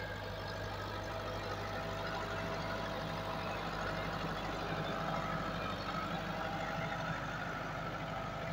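Massey Ferguson 385 tractor's diesel engine running steadily under load as it drags a laser land-leveling blade through loose soil, growing slightly louder toward the middle as the tractor passes close.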